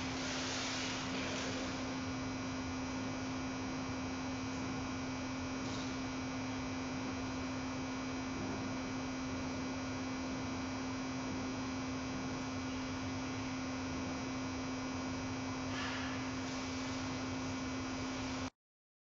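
Steady hum from a panda cam's audio feed: one strong low-pitched tone and fainter steady tones over a constant hiss, with a few faint brief rustles, cutting off suddenly near the end.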